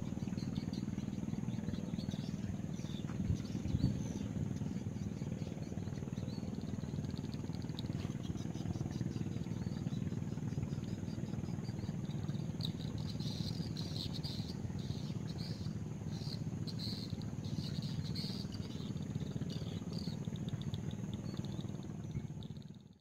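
Outdoor ambience: a steady low rumble, with a thin high insect drone throughout and a run of quick high chirps in the second half.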